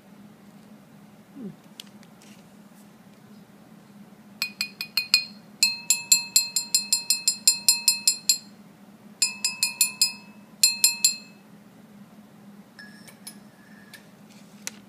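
A spoon clinking quickly and rhythmically against a china cup, as in stirring tea, about five or six clinks a second, each ringing at the same pitch. The clinking comes in four runs, starting about four seconds in and stopping about seven seconds later.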